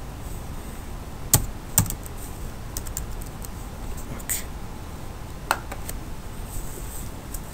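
Computer keyboard keystrokes: a few scattered key clicks, the two sharpest close together about a second and a half in, over a steady faint hiss.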